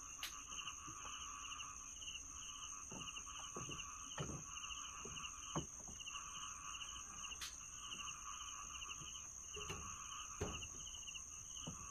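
Faint dawn chorus of crickets, other insects and small frogs: a steady high insect drone with a pulsed chirping call repeating over and over. A few soft knocks are heard along the way.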